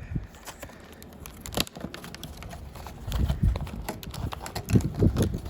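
Plastic card-pack wrapper crinkling and tearing as it is opened by hand, with wind buffeting the microphone in two gusts, about three seconds in and near the end.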